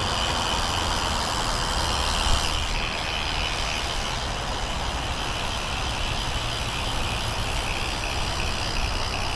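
Stock Haro rear hub on a BMX cruiser, its freewheel pawls ticking in a steady rapid buzz as the rear wheel spins freely after being pedalled by hand, with one brief knock about two seconds in.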